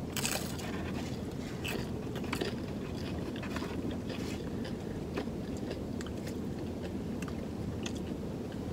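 A crisp crunching bite into a fried rolled taco just after the start, then crunchy chewing with scattered small crackles, close to the microphone, over a steady low hum.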